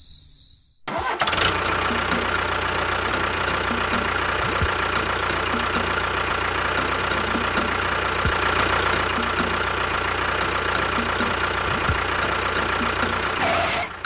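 Engine running steadily at idle, with about two light ticks a second. It starts abruptly about a second in and cuts off just before the end.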